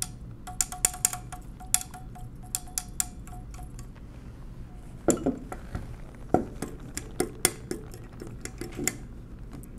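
Metal levers and frame of a 1920s Monroe Model K mechanical calculator clicking and clinking as a freshly oiled part is worked back and forth by hand. An irregular run of sharp metal clicks, the ones in the first few seconds followed by a short ringing tone.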